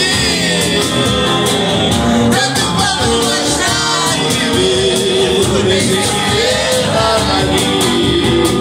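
Live band music: a singer at the microphone over strummed guitars, with a steady percussive beat.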